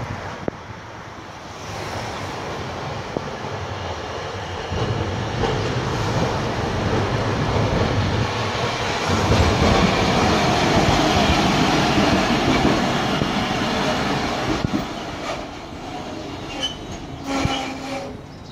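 Hakodate City streetcar (car 8007) running along street track, its wheels rumbling on the rails, growing louder as it draws near and passes close, then easing off as it slows, with brief wheel squeals near the end.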